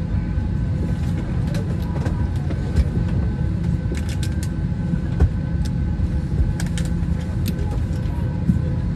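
Boeing 777-300ER's engines running steadily while the airliner stands still, a low rumble with a few steady whining tones over it and some light clicks.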